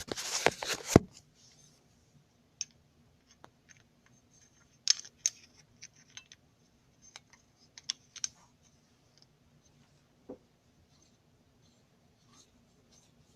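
A small aluminum flashlight being handled and screwed back together by hand. It starts with a loud scraping rustle lasting about a second, then gives scattered light clicks and ticks.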